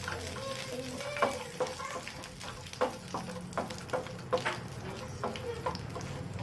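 Cashew nuts frying in hot ghee in a nonstick pan, a light sizzle under the repeated irregular clicks and scrapes of a wooden spatula stirring them around the pan.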